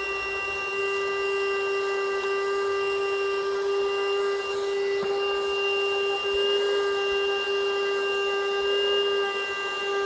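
Cherylon portable car vacuum running with a steady high whine, its hose nozzle sucking up crumbs and broken nut pieces from the carpet.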